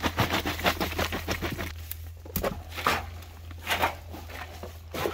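Wood chip and dry leaves rustling and crackling as they are handled: a quick run of crackles in the first couple of seconds, then a few separate crunches.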